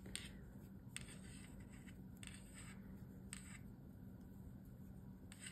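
Faint, irregular light clicks of circular knitting needles as stitches are worked, about five in all, over a low steady hum.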